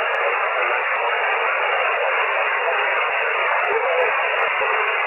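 Shortwave amateur radio receiver on single sideband putting out steady static hiss between transmissions. The hiss is squeezed into a narrow voice band by the receiver's filter.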